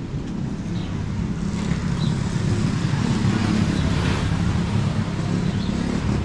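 A motor vehicle on the street running past close by, its engine and road noise growing louder to a peak about halfway through, then easing off.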